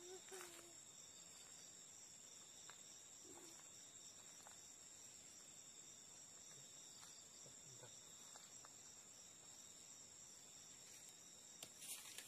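Faint, steady high-pitched chirring of crickets or similar night insects, several even tones held without a break, with a few faint clicks here and there.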